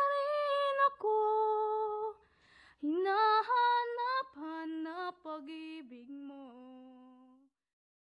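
A woman singing a slow Tagalog Christmas song unaccompanied, in long held notes with a breath between phrases; the last phrase falls in pitch and fades out near the end.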